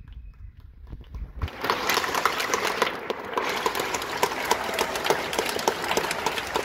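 A few low thuds, then an audience breaks into applause about a second and a half in, a dense steady clapping that carries on.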